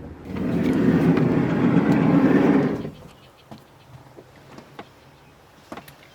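Steady vehicle running noise that cuts off abruptly about three seconds in, leaving a faint low hum and a few light clicks.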